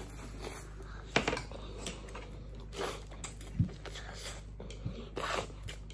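Close-up eating sounds: noodles being slurped and chewed, with short hissing slurps and small mouth clicks and smacks.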